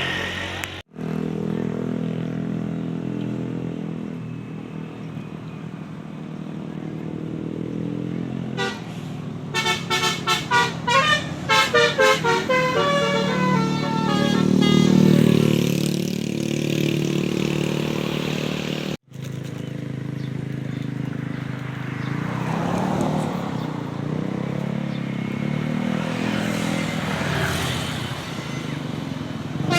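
Telolet musical horns on buses playing rapid, trilling runs of notes, loudest from about ten to thirteen seconds in, over the steady running of bus engines.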